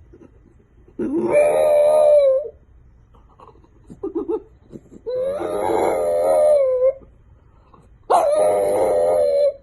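A dog howling: three long calls on a high, slightly wavering pitch, each about one and a half to two seconds long, with short pauses between them.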